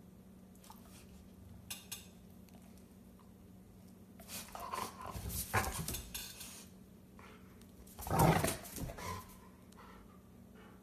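Bernese mountain dog scrambling up on a hard floor, claws and paws scuffling for a couple of seconds, then one loud, short, gruff woof about eight seconds in.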